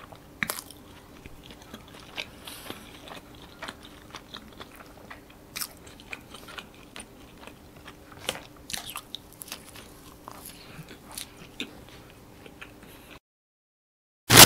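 Close-miked chewing of a soft white-bread sandwich with chicken slice and cheese: scattered wet mouth clicks and smacks over a faint steady hum. It cuts to dead silence about a second before the end.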